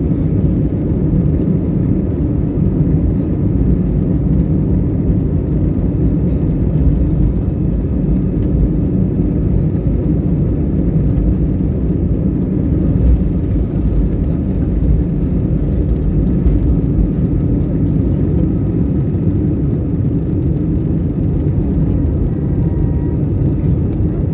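Airbus A320 cabin noise during the takeoff roll and lift-off, heard from a window seat over the wing: a steady, loud, low rumble of the engines at takeoff power.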